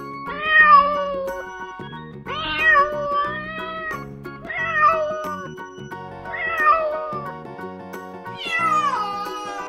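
Domestic cat meowing five times, each meow drawn out for about a second, the last one falling in pitch. Soft background music plays underneath.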